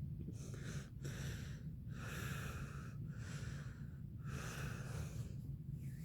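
A person breathing noisily in and out, a run of breaths about one a second, over a steady low hum.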